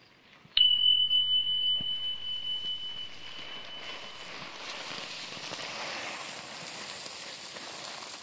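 A single electronic bell-like ding about half a second in, a steady high tone fading over about three seconds: the subscribe-button sound effect. Then wheat grain pours from a cloth sack into a mud-and-straw silo with a steady hiss.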